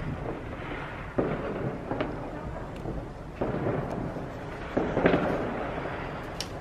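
Fireworks going off: several separate bangs a second or so apart, each trailing off in a rumble.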